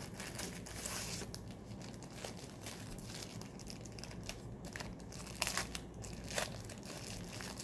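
Packaging being handled and unwrapped, a steady crinkling and rustling with a couple of sharper clicks a little past the middle.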